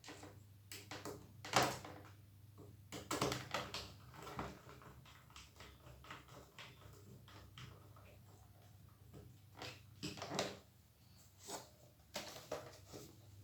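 Irregular clicks and knocks from handling a laptop's case during reassembly, over a faint steady low hum.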